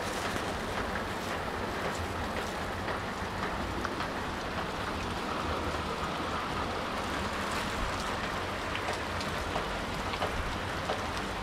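Steady rain falling, with many small drops ticking on nearby surfaces over a continuous hiss.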